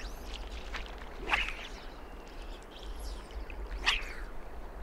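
Two short, sharp bird calls, about a second in and near the end, with fainter chirps between them, over a steady low rumble.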